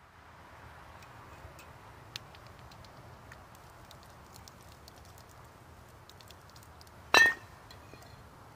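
A single sharp glass clink with a short bright ring about seven seconds in, over a faint steady hiss with a few small scattered ticks.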